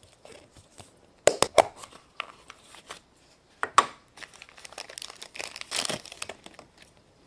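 Foil wrapper of a surprise chocolate egg being crinkled and torn off by hand, with a few sharp clicks and snaps about a second and a half in and near four seconds in.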